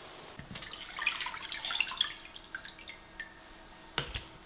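Water splashing and dripping as a whole raw chicken is handled and lifted out of a stainless steel bowl of water, with irregular wet crackles and drips. A single sharp knock about four seconds in.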